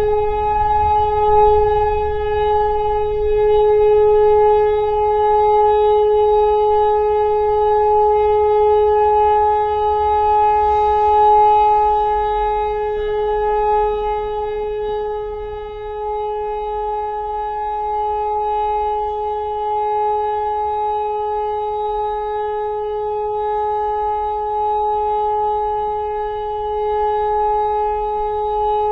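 Civil-defence siren holding a steady, unbroken tone after winding up. A continuous tone like this is the German all-clear (Entwarnung) signal.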